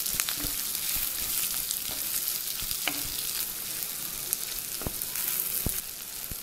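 Chopped onions frying in hot oil in a clay pot, a steady hiss, while a metal spatula stirs them and knocks or scrapes against the pot now and then.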